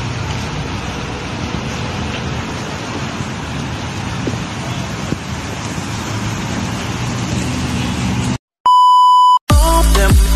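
Steady outdoor street noise with traffic, cut off abruptly about eight seconds in. After a brief silence comes a single steady electronic beep lasting under a second, the loudest sound here, and then music begins near the end.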